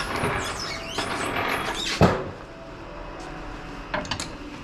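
A small household snowblower being dragged and turned on its rubber tracks across a shop floor: about two seconds of scraping and rattling that ends in a heavy thud, followed by a few light knocks near the end.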